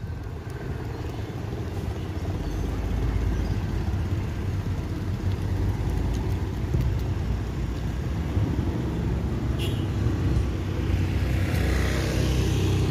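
Engines of slow-moving cars and a bus rumbling together, growing louder toward the end.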